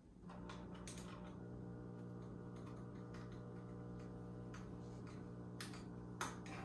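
A steady, even machine hum starts just after the beginning and holds, with a few light clicks and taps over it.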